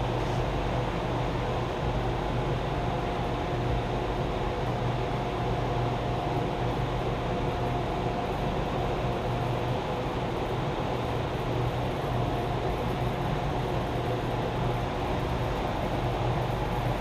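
A steady machine hum and rushing noise, like a running motor or fan, with a faint high whine that comes and goes.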